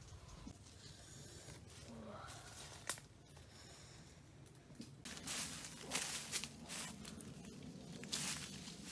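Leaves and twigs of an orange tree rustling and swishing as they are pushed aside by hand, in several bursts from about five seconds in, with a single sharp click a little before.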